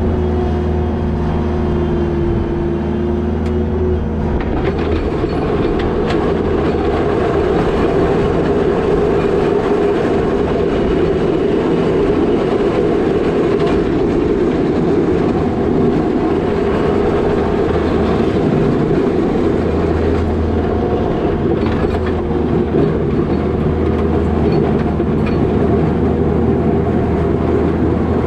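New Holland L220 skid steer's diesel engine running steadily under work, with a dense rattling clatter of the machine and its box plow joining in about four seconds in.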